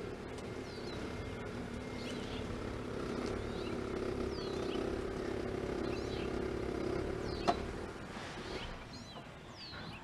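Small birds chirping with short, quick sweeping notes about once a second, over a steady vehicle engine hum that grows a little and then fades near the end. A single sharp click comes about seven and a half seconds in.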